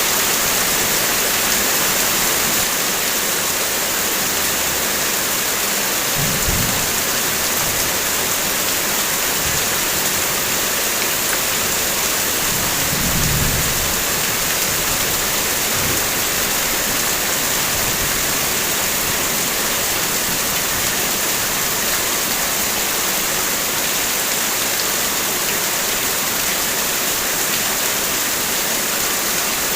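Heavy rain falling steadily on a car, a dense, even hiss of raindrops on the vehicle. Two brief low rumbles come about 6 and 13 seconds in.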